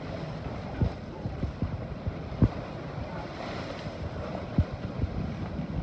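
Sea water rushing and splashing along the hull of a Scorpio 72 sailing yacht moving fast under sail, with wind on the microphone and a few sharp low thumps.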